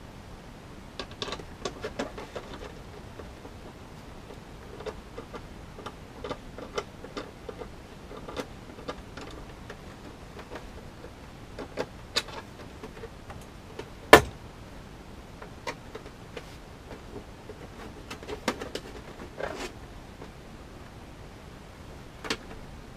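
Hard plastic helmet shell being handled and worked with a hand screwdriver while fitting the ear caps: scattered light clicks, taps and knocks, with one sharper knock about 14 seconds in.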